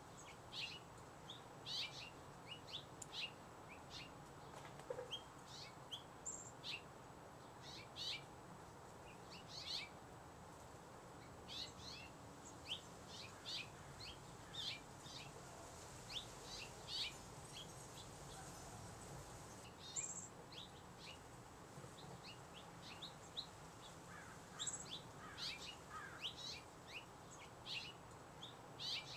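Many short, high-pitched chirping calls in quick, irregular succession, over a low steady hiss.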